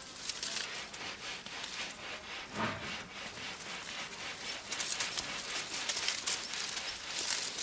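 Dogs rooting through a garden bed, rustling leaves and crackling dry bark mulch and twigs, with sharper, louder crackles in the second half. A brief low sound comes about two and a half seconds in.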